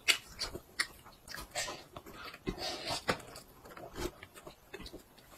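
A toddler biting and chewing a large piece of cooked meat held in both hands, close to the microphone: irregular wet smacks and clicks of the mouth and teeth.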